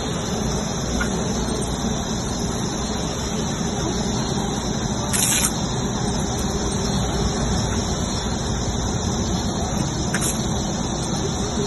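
Garden sprinkler spraying water across a lawn: a steady hiss of spray, briefly louder about five seconds in.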